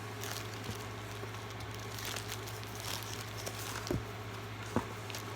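Packaging crinkling and rustling as a skein of yarn is handled and unwrapped, with a couple of small knocks near the end, over a steady low hum.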